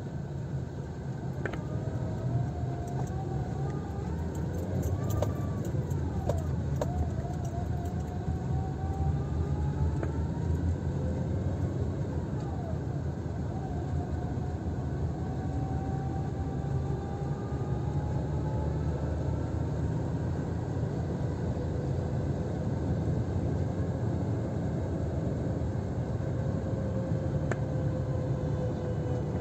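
Car driving on a wet road, heard from inside the cabin: a steady low engine and road rumble with tyre noise. A faint whine rises slowly in pitch several times as the car gathers speed.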